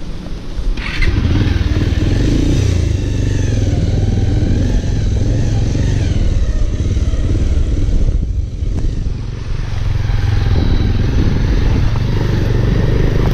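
Motorcycle engine running at low speed as the bike rides over a rough dirt and gravel track.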